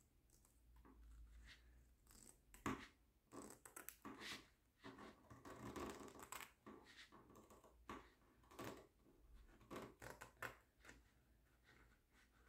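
Faint, irregular snips of scissors and rustling of the diamond-painting canvas as its edge is trimmed and the canvas is handled.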